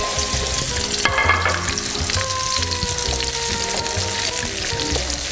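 Sliced onion sizzling in hot olive oil in a pan, stirred with a wooden spatula.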